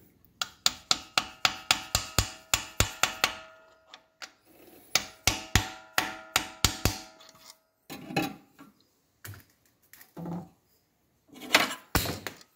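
A hammer tapping a socket to drive a new oil seal into an ATV's water pump housing: two quick runs of light metallic taps, about four or five a second, each strike ringing briefly. A few scattered knocks and scrapes follow near the end as the socket is handled.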